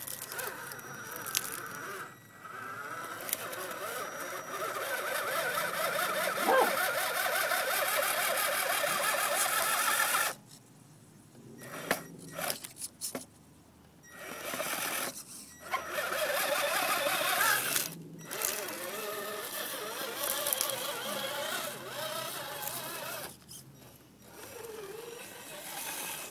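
Electric motor and gears of a scale RC rock crawler whining as it crawls over rocks, the pitch wavering up and down with the throttle. It stops and starts several times, with the longest break about ten seconds in.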